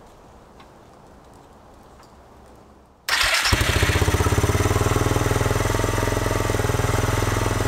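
A few seconds of quiet with faint handling clicks, then the 454 cc Arctic Cat Bearcat engine is started about three seconds in. It catches almost at once and settles into a steady, evenly pulsing idle through a shortened car muffler.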